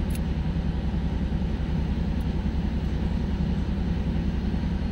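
Buick Reatta's 3.8-litre V6 idling steadily with the air conditioning running: an even low rumble. A few faint small clicks sit over it.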